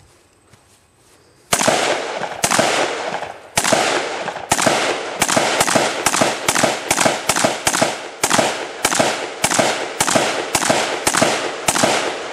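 A shouldered rifle fired rapidly, about twenty single shots at an uneven pace of roughly two a second, starting about a second and a half in; each sharp crack is followed by a short echo.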